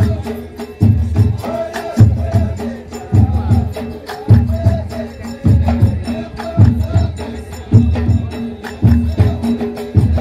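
Live ahwach performance: frame drums beat a deep, steady pulse about once a second, with quick sharp taps in between, under a men's group chant.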